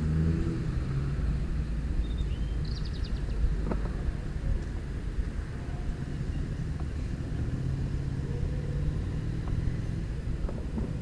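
Steady low rumble of road traffic, with the engine note of a passing vehicle rising and falling near the start and again around eight seconds in.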